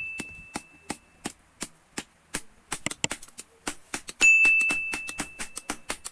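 Hammer striking steel on an anvil: a run of sharp taps, about three or four a second, and a hard blow a little over four seconds in that sets off a clear high ring dying away over a second or two.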